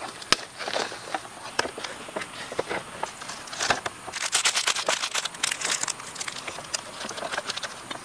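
Plastic snack packaging crinkling and crackling as it is handled, in irregular clicks with a dense flurry of crinkles about halfway through.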